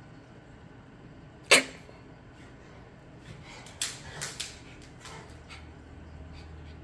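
Two dogs playing: one sharp bark about a second and a half in, then a few shorter, quieter play noises in quick succession about two seconds later.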